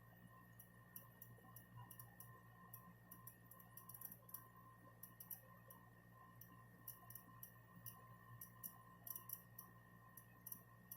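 Panasonic F-Y20EH dehumidifier running, faint: a steady low hum with a thin steady whine, and irregular high-pitched ticking and crackling. This is the abnormal noise that has persisted through four repairs.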